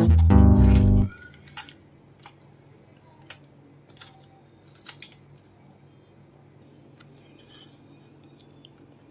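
Guitar music stops abruptly about a second in. Then a knife slices through fresh green chillies held over a ceramic plate, with a few scattered, short, sharp clicks of the blade cutting.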